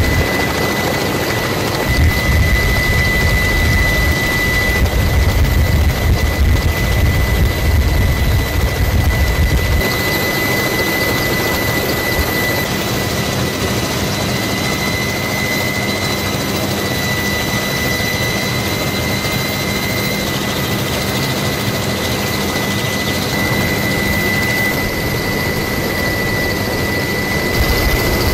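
Attack helicopter in flight: a steady high turbine whine over continuous rotor and engine noise, with a heavy low rotor rumble for roughly the first ten seconds before it turns lighter.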